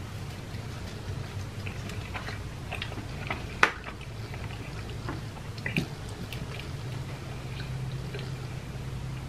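Close-up chewing and mouth sounds of a person eating, with scattered small clicks and a sharp click about three and a half seconds in, over a steady low hum.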